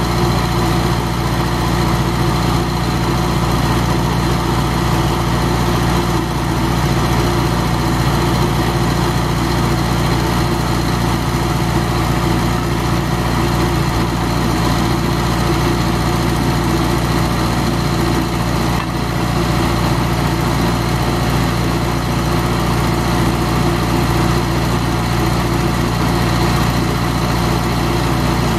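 Vermeer 630 stump grinder's engine running at a steady, even speed.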